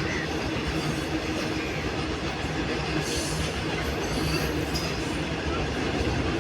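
Train running over a bridge, heard from below the span: a steady, loud rumble of wheels and cars on the bridge, with faint high wheel squeals about three to five seconds in.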